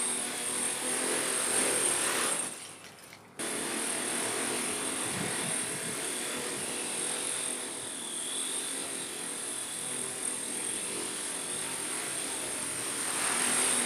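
Electric motors spinning a twin-rotor model's 3D-printed rotor heads: a steady high-pitched whine over a buzzing rotor noise. It drops away about two and a half seconds in and returns sharply a second later.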